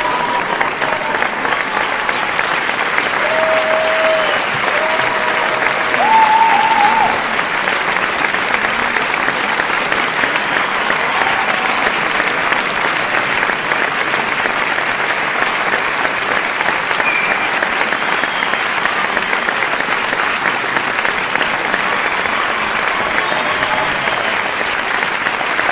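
A crowd applauding steadily, many hands clapping in a dense, continuous patter. A few voices call out over the clapping between about three and seven seconds in, the loudest about six seconds in.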